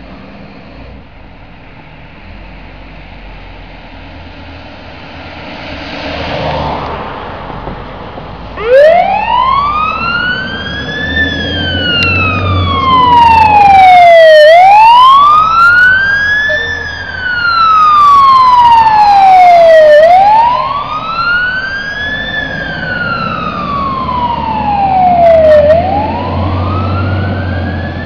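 Fire truck siren wailing: it starts about a third of the way in and sweeps up and down, each rise quick and each fall slower, about once every five to six seconds, over the low rumble of the truck's engine pulling out.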